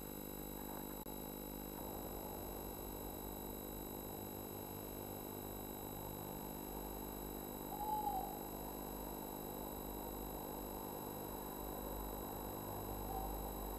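Steady hum and hiss, with one short, faint, pitched call about eight seconds in and a longer one starting near the end.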